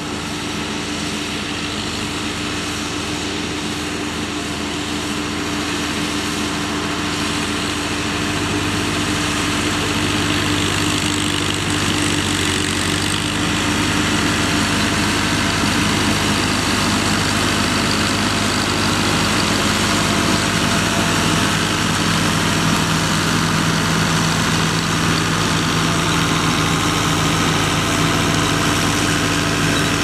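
Ford 7810 tractor's six-cylinder diesel engine running steadily under load while pulling a three-furrow plough through the soil, growing gradually louder.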